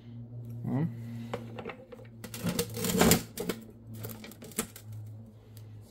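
A string of light clicks and knocks from handling at a bench vise, densest about three seconds in, over a steady low electrical hum.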